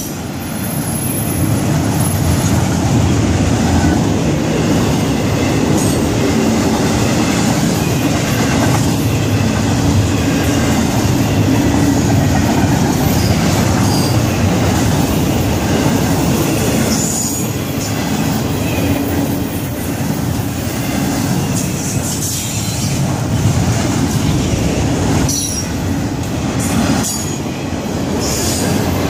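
Freight train's double-stack container and trailer cars rolling past close by: a loud, steady rumble of steel wheels on rail, with a few brief high squeals from the wheels now and then.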